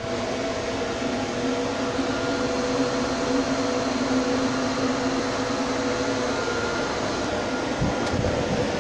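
CNC lathe running, a steady machine hum with several steady whining tones over it; a short low rumble comes in about eight seconds in.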